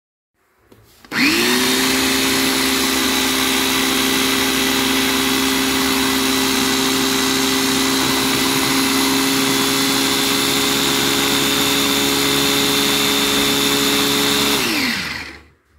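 Small electric food chopper blending a jar of green liquid. The motor spins up about a second in, runs steadily at one pitch, and winds down to a stop near the end.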